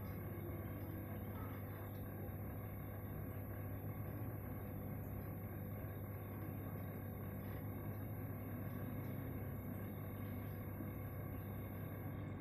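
Steady low hum of aquarium equipment, unchanging throughout, with a faint hiss over it.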